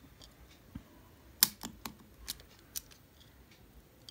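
Plastic box cutter working on the seal of a cardboard earbuds box: a handful of short, sharp clicks and snips, the loudest about one and a half seconds in.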